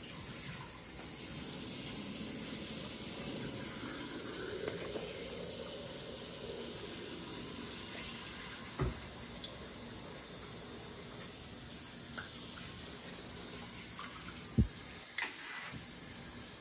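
Kitchen faucet running steadily into a stainless steel sink, with a few sharp knocks: one about halfway through and a louder pair near the end.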